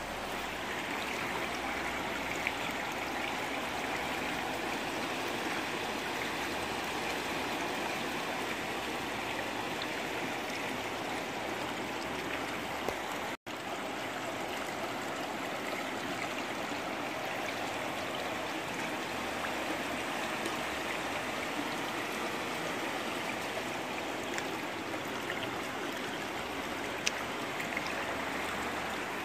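Steady flow of water from a hose splashing into a glass fish tank.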